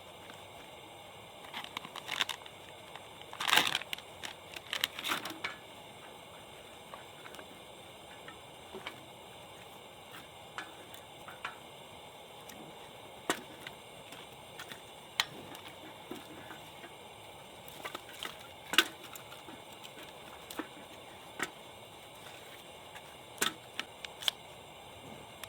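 Wood fire crackling, with scattered sharp pops at irregular intervals over a faint steady hiss. A denser run of clicks comes in the first few seconds.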